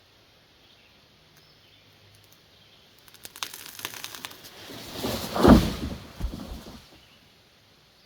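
A tree falling: a run of sharp cracks about three seconds in builds into a crash that peaks with a loud, deep impact, then dies away within a couple of seconds.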